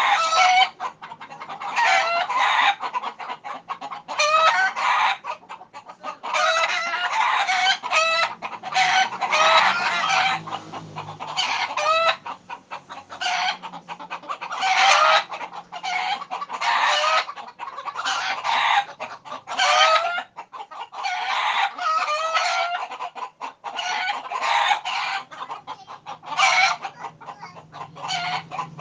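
Flock of chickens, roosters among them, cackling and squawking in alarm as frightened birds do: dense bursts of calls, often overlapping, broken by short pauses.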